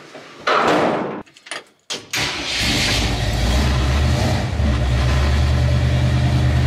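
A loud scuffling noise and a few clicks, then about two seconds in the old truck's carbureted engine starts, catching at once, and settles into a steady idle. The engine is described as super cold blooded, and it has already had a few minutes of warm-up.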